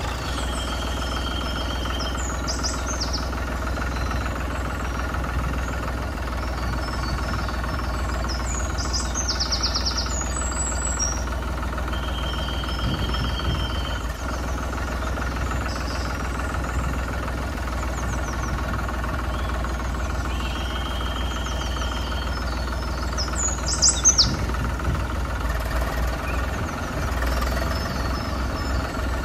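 Tractor engine sound running steadily with a low hum. It is a looped sound effect whose pattern repeats about every eight seconds, with short high chirps mixed in.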